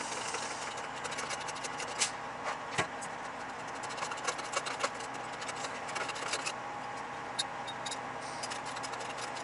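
Irregular light metal clicks and clinks of a hydraulic jack being worked to lift a truck cab, over a steady engine hum in the background.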